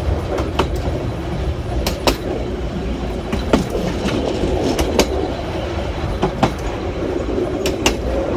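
Passenger train's carriage wheels running on the rails: a steady rumble with sharp clicks in pairs about every second and a half as the wheels cross rail joints.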